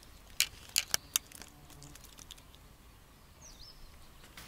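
Four or five sharp clicks and taps in the first second or so, from handling fishing tackle, then quiet outdoor background with one short whistled bird call about three and a half seconds in.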